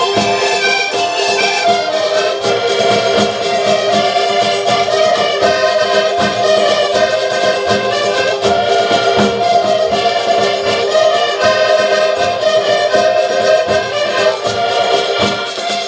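Several accordions playing a lively traditional Portuguese folk tune together, with a bass drum beating a steady time under them.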